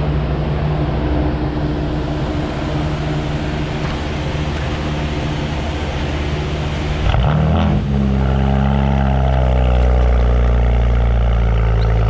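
Twin-turbo BMW coupe's engine idling, heard from the exhaust. About seven seconds in the sound changes abruptly to a louder, deeper exhaust note, which then holds steady.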